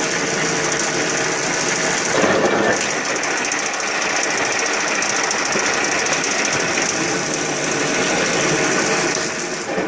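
Roller-fed wood-processing machine running, with a fast, steady mechanical clatter and a louder rough burst about two seconds in.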